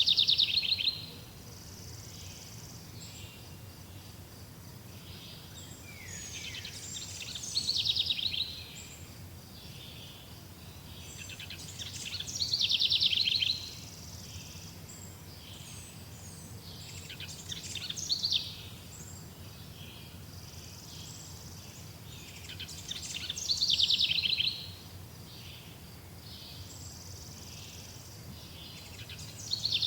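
A bird singing the same loud, trilling phrase over and over, about six times, one every five to six seconds, each phrase swelling and then breaking off abruptly. A steady low background noise runs underneath.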